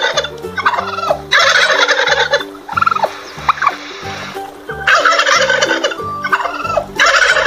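Tom turkey gobbling: a run of loud, rattling gobbles, repeated several times with short pauses between them.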